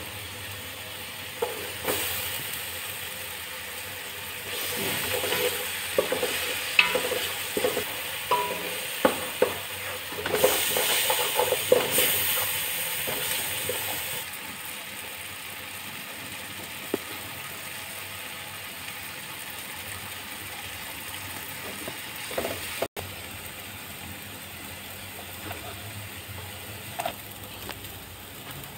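Chopped tomatoes, onion and curry leaves frying with a steady sizzle in an aluminium pot. A wooden spatula stirs and scrapes against the pot, with a busy run of knocks and scrapes in the first half and only occasional taps later.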